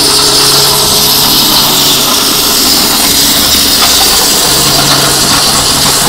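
Starq W8 2800 W electric high-pressure washer running, its water jet hissing steadily as it cuts through a cardboard box. The motor's low hum drops away for a couple of seconds mid-way.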